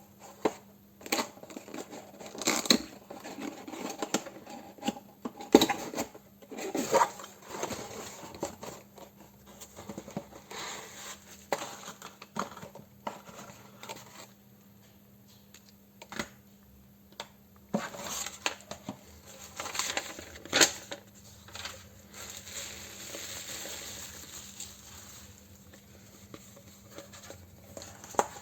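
Hands unpacking and handling the product: packaging tearing and crinkling, with scattered sharp knocks and clicks. A faint steady hum runs underneath.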